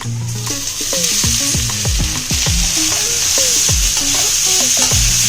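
Marinated Gobindobhog rice going into hot oil in a kadai, sizzling loudly as it is fried and stirred. The sizzle swells about half a second in and then holds steady.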